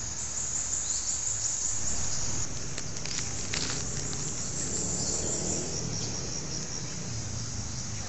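A steady chorus of insects chirring in a high, rapidly pulsing trill, with a few faint clicks about three seconds in.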